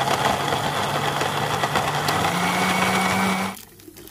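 Electric blender running, blending dates with milk into a milkshake. Its hum steps up in pitch about two seconds in, and it shuts off near the end.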